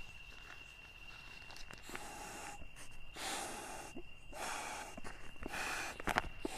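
A man blowing by mouth into the valve of an inflatable sleeping pad to inflate it: a run of long breathy puffs about a second apart, starting about two seconds in.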